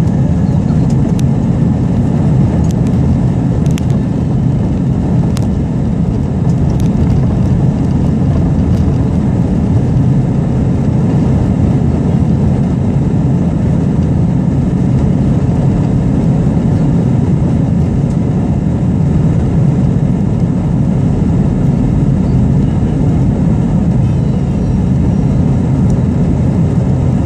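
Airbus A321 jet engines and airframe heard inside the passenger cabin as a loud, steady rumble while the airliner rolls along the runway for takeoff. A few faint ticks or rattles come in the first seven seconds.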